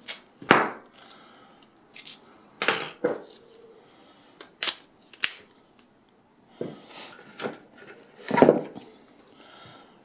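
Handling noise from a coiled steel cable lock: about a dozen irregular knocks and clacks as the sleeved cable and plastic lock head are moved about and knocked against a bar counter, the loudest about half a second in and again near the end.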